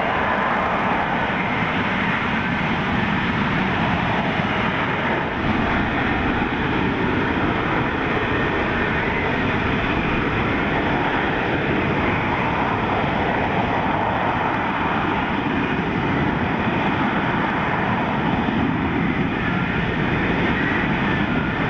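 F-35B's single jet engine and shaft-driven lift fan running at hover power, a steady, even rush of jet noise with a faint whine, as the aircraft hovers and slowly descends for a vertical landing.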